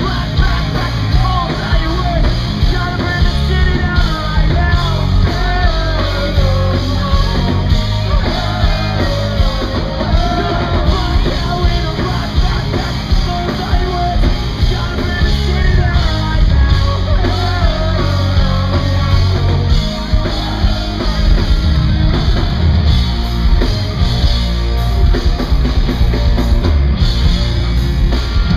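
Live pop-punk rock band playing loudly: drums and electric guitars with a sung lead vocal, heavy in the bass.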